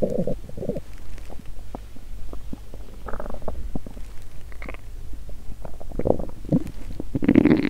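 An empty human stomach growling from hunger: a string of low gurgles and small pops, with a longer, louder gurgle near the end.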